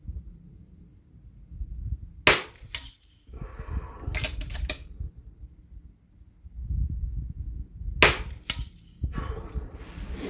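Two shots from an FX DRS pre-charged pneumatic air rifle, set to UK sub-12 ft-lb power, about six seconds apart. Each is a sharp crack followed a moment later by a fainter one, and a run of small mechanical clicks comes after each shot, under a low wind rumble on the microphone.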